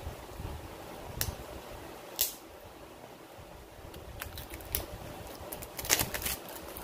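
A knife blade slitting the seal on a small cardboard box, then the box being pulled open and a clear plastic wrapper handled: scattered sharp clicks and scrapes, thickening into a run of crisp crackles in the second half. A faint steady fan hum runs underneath.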